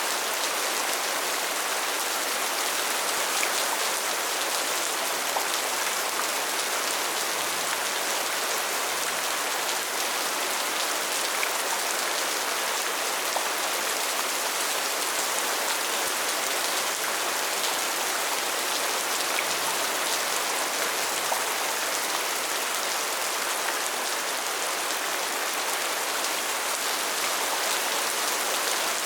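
Steady rain falling: an even hiss of rain with scattered faint drop ticks.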